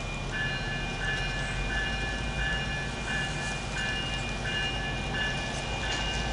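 MBTA commuter rail train standing at a platform, its low idling rumble running steadily. Over it, from shortly in, a two-pitched electronic beep repeats about one and a half times a second.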